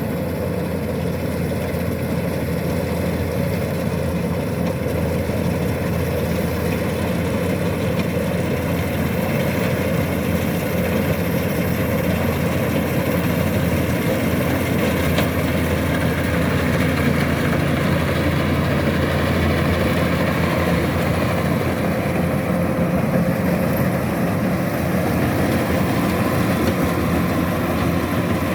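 Kubota DC-105X combine harvester's diesel engine running steadily under load, getting a little louder about halfway through.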